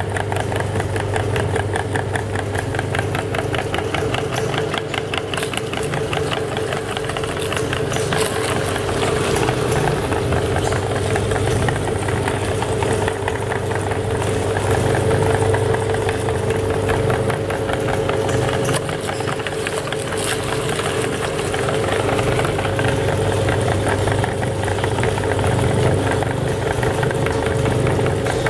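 Motor-driven meat grinder running steadily with a hum and a fast, even clatter as green chillies are forced through the auger and cutting plate.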